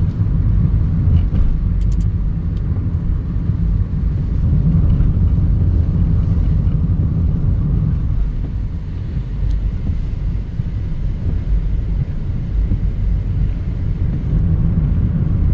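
Steady low rumble of a car driving, with engine and road noise heard from inside the vehicle. A few faint clicks come about two seconds in.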